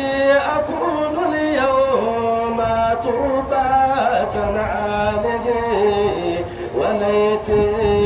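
A solo male voice chanting Arabic devotional praise poetry (madih) with no instruments, holding long notes and sliding between pitches.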